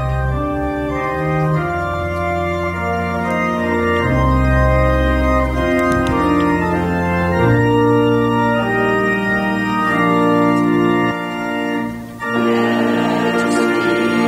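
Church organ playing a hymn introduction in sustained chords over deep bass notes, the chords changing every second or two. After a short break near the end, a congregation begins singing along.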